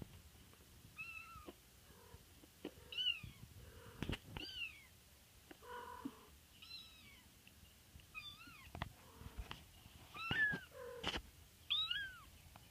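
Young kittens, about four and a half weeks old, mewing: short high-pitched cries that rise and then fall in pitch, about one every second or so, with a few knocks in between.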